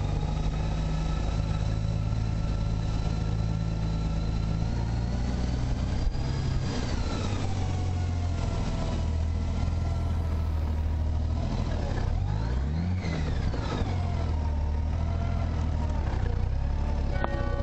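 Motor vehicle engine running, its pitch climbing about five to six seconds in and falling away after, then rising and falling again around twelve seconds in.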